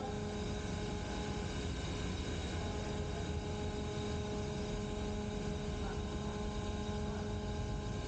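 Ship's steering gear machinery running in the steering gear room: a steady hum with several constant tones over a low machinery noise.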